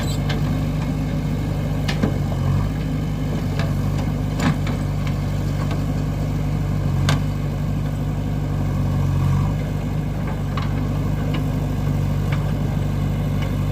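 JCB 3DX backhoe loader's diesel engine running steadily, swelling briefly a couple of times as it takes load, with occasional sharp metallic clanks.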